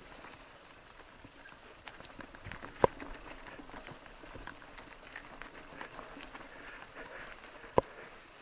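Mountain bike rattling down a rough, stony singletrack: a run of irregular small clicks and clatters from the bike and its tyres on loose stones, with two louder knocks, one about three seconds in and one near the end.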